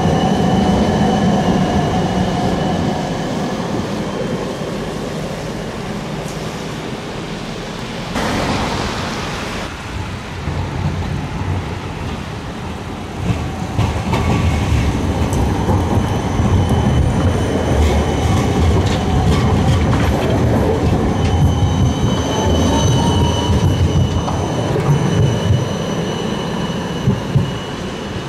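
Low-floor electric trams running on street rails, a Siemens Combino among them: a low rumble of wheels on the track under steady high-pitched whines from the drive. One whine rises in pitch about three quarters of the way through, and there is a brief rushing noise about eight seconds in.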